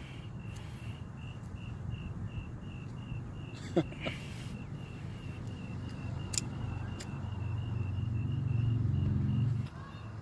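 Standoff ambience: a high, even chirp repeating several times a second over a low rumble that builds louder and cuts off suddenly near the end, with a few sharp clicks.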